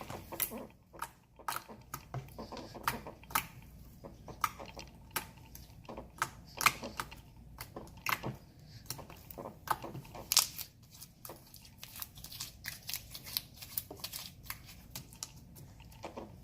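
Hands kneading and stretching a soft, melted slime mixed with Play-Doh, making irregular sticky pops and clicks.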